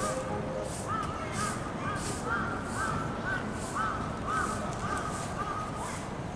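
Crows cawing over and over, short calls following one another through the whole stretch.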